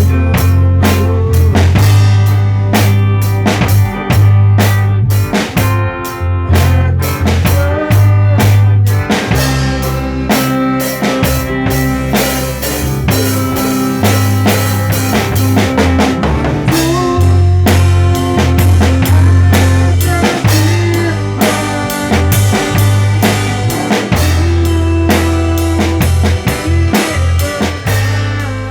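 A band playing live at a rehearsal: a drum kit keeping a steady beat with snare and bass drum, under a low bass line and other pitched instruments.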